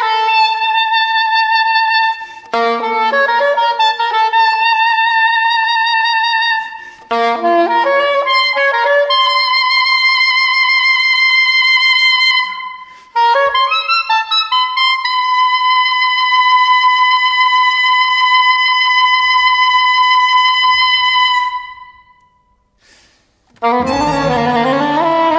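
Unaccompanied soprano saxophone playing quick flurries of notes broken by short pauses, then settling on long held high notes, the last held about six seconds with a slight vibrato before fading away. After a brief silence the string orchestra enters near the end.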